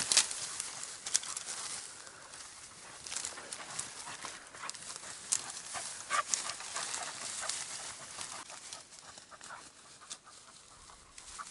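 Dry brush and grass rustling, with many small twig cracks and crackles, as a hunting dog forces through thick cover searching for a downed bird; busiest at the start, then thinning out.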